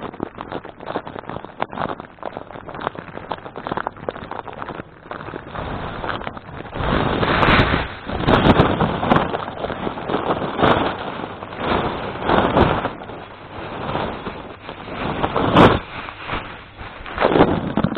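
Handling and movement noise on the microphone: irregular rustling, rubbing and scraping, with short clicks at first and louder swelling surges from about a third of the way in.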